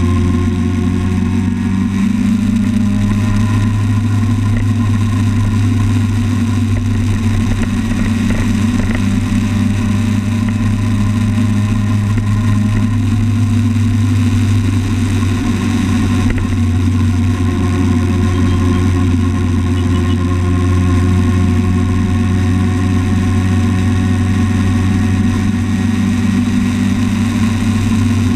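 Motorcycle engine running steadily at road speed, picked up close by a camera mounted on the bike, its note shifting slightly a few times.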